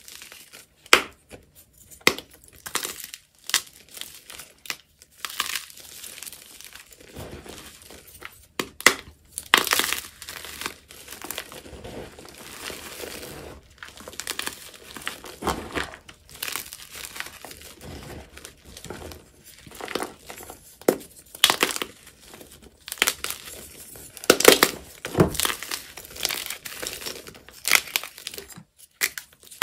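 Hands crushing and crumbling a block of SPRI gym chalk dusted with purple Holi powder: irregular sharp crunches and snaps, with softer powdery rustling between them as the crumbs are squeezed.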